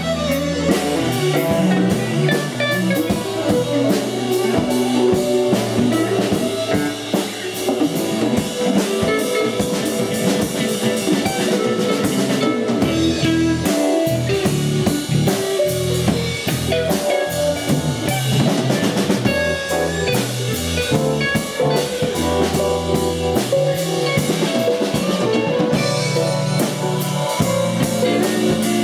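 Live rock band playing an instrumental passage at a soundcheck: a drum kit keeps a busy beat under a guitar and a moving low bass line.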